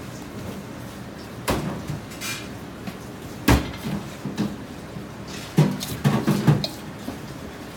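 A stainless steel canister clanking against the rim and inside of a stainless steel bowl as it is filled by hand with seasoning salt. The clanks are scattered, the loudest about three and a half seconds in, then a quick run of several around six seconds in.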